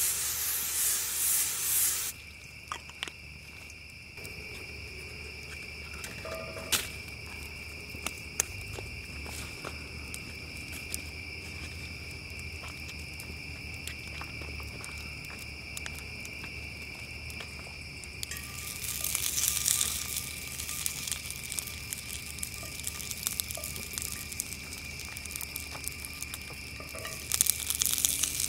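Cooking spray hissing onto a hot cast-iron skillet for about two seconds at the start. Then crickets chirp steadily over the crackle and pops of a wood campfire. From about two-thirds of the way through, Korean beef patties sizzle in the skillet, louder again near the end.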